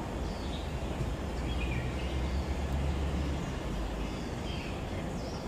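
Open-air ambience: a steady low rumble with small birds chirping now and then in short, falling notes.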